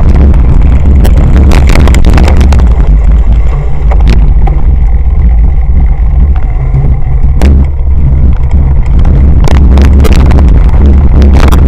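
Loud rumble and buffeting on a camera mounted on a cyclocross bike riding a rough dirt course, with frequent sharp knocks and rattles as the bike goes over bumps, fewer of them through the middle.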